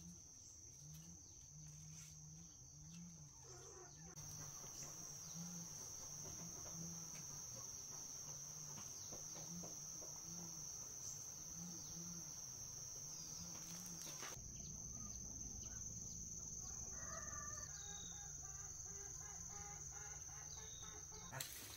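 Chickens clucking over a steady, high-pitched insect drone, with a longer pitched call near the end.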